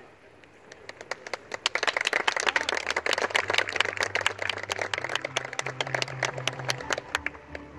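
Audience clapping: a dense patter of hand claps that builds about a second in and thins out near the end, with music playing faintly underneath.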